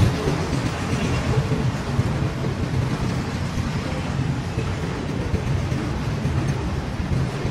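Freight train of loaded flatcars rolling past, a steady rumble of steel wheels on rail.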